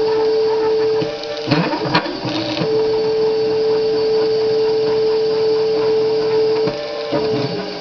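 Stepper motors of a wooden-framed CNC machine whining steadily as they drive a marker pen across paper. The tone breaks off with a few sharp clicks about one and a half to two seconds in, then runs steady again and shifts in pitch near the end as the moves change.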